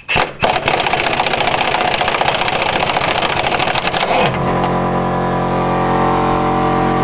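Pneumatic impact wrench hammering rapidly on a 14 mm bolt for about four seconds, then cutting off as a sustained distorted electric guitar chord comes in.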